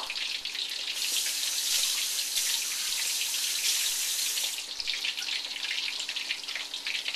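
Battered shrimp deep-frying in a wok of hot oil, the first of two fries: a steady bubbling sizzle full of small crackles, growing denser and louder about a second in and easing back a little past the halfway point.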